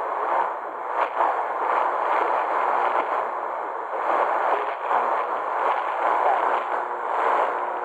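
Tecsun PL380 portable radio tuned to a weak shortwave AM broadcast on 9850 kHz: mostly a hiss of static that swells and fades every second or two, with no clear programme audio coming through.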